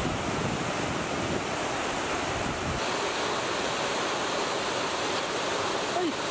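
Steady rushing of river water pouring over a low weir. Wind rumbles on the microphone until a little under halfway through.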